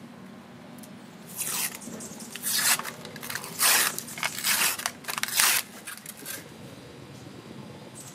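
Paper label being peeled and torn off a cardboard tube of refrigerated biscuit dough: five or six short, crackly ripping sounds, the loudest in the middle.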